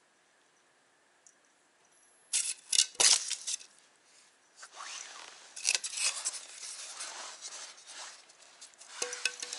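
A piece of styrofoam being batted across concrete and handled, giving a run of sharp, scratchy scraping and rubbing noises that start about two seconds in, with the loudest around the three-second mark.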